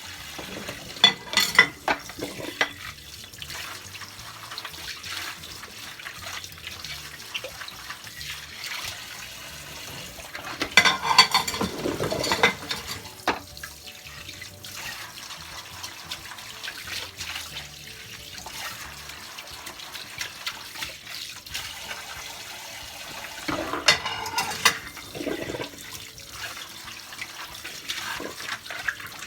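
Tap water running into a kitchen sink as dishes are washed, with louder bursts of splashing and clinking three times: about a second in, around eleven seconds in and near twenty-four seconds in.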